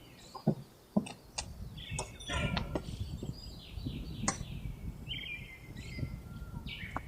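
Wild birds chirping in short repeated calls, with a few sharp clicks and knocks of gear being handled over a low rumble.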